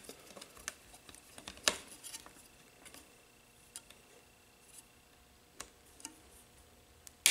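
Scattered light clicks and taps of hands handling a model helicopter's tail rotor assembly, with a sharper click about a second and a half in and another near the end.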